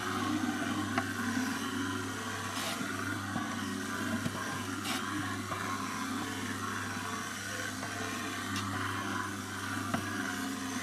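BoilieRoller dough mixer running, its six spinning fingers churning boilie dough in a metal pot: a steady hum with a few faint clicks.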